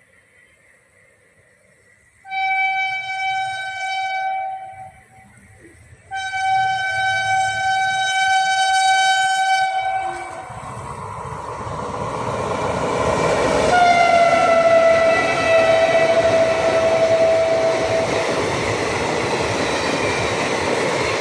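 Indian Railways train horn sounding two long blasts, then the train running past with rising wheel and track noise. A third long horn blast sounds as it passes, its pitch dropping a little.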